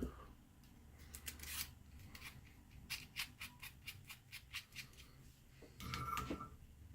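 Faint clicks and light scraping of small metal parts handled at a workbench, most likely the soldering iron's tip being swapped for a fine pointed one. There is a run of quick ticks, then a brief louder rustle with a short tone near the end.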